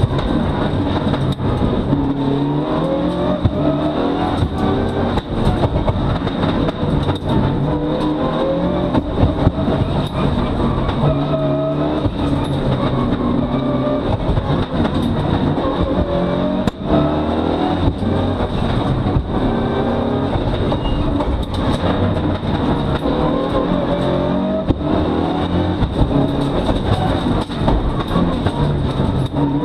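Mitsubishi Lancer Evolution VII's turbocharged four-cylinder engine heard from inside the cabin under racing load, its pitch rising again and again as the car accelerates, then dropping at each gear change or lift.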